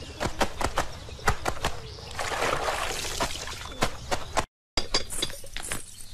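Laundry being washed by hand: water splashing and sloshing, with sharp slaps and clicks of the wet cloth. Just after four and a half seconds the sound drops out for a moment, then a run of light knocks follows.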